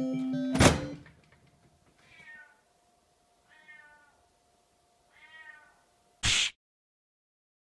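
A pet cat meowing three times, each call a drawn-out cry that rises and falls in pitch, with a faint steady tone behind. A loud crash ends the music just before the first call, and a short loud burst of noise follows the last.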